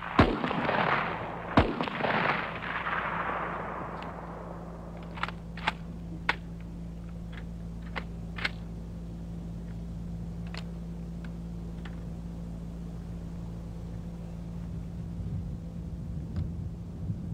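Two loud shots from an M14 rifle (7.62×51 NATO) about a second and a half apart, each echoing across the range for a couple of seconds. Then a scattering of much fainter sharp cracks at irregular intervals over a steady low hum.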